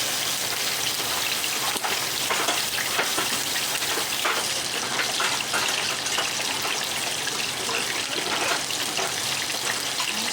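Fish frying in hot grease in a skillet: a steady sizzle dotted with many small pops and crackles.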